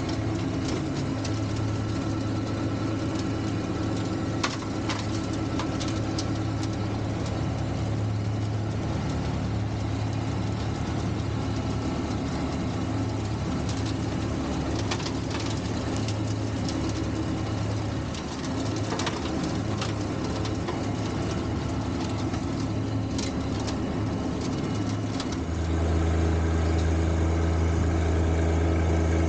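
John Deere 1025R compact tractor's three-cylinder diesel engine running steadily. Short clicks and knocks come and go over it. About 25 seconds in, the engine note drops a little and gets louder.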